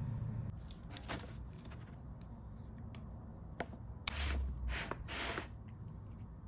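Handling noises of small parts and tools: scattered light clicks, then a few short scrapes with a dull knock between about four and five and a half seconds in, over a low steady hum.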